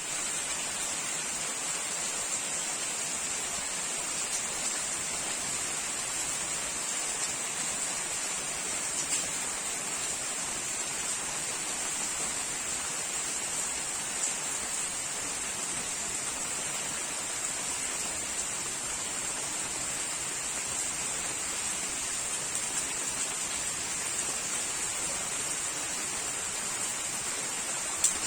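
Steady rain falling, an even hiss with a few brief louder drop hits.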